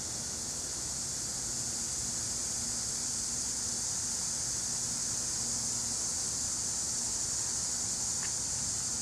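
1988 Tempstar central air conditioner condenser running: a steady low hum and fan rumble under a steady high hiss.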